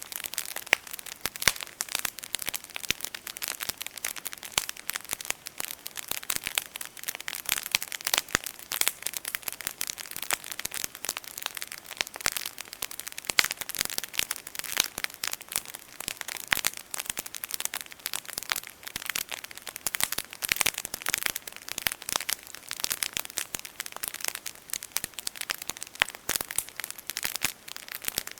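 Campfire burning, the wood crackling and popping in a dense, irregular stream of sharp snaps.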